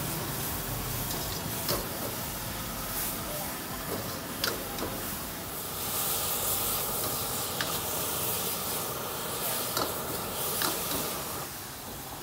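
Meat and greens sizzling in a wok, with a metal ladle scraping and clinking against the wok several times. The sizzle eases near the end.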